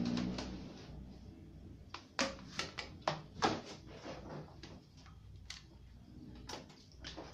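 Scattered light clicks and knocks from a hand handling a plug and wires at a power outlet, a dozen or so short taps over a few seconds.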